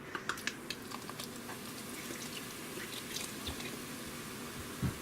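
Beer poured from a bottle into chili in an Instant Pot insert, splashing and fizzing, with a few small clicks in the first second and a low knock near the end.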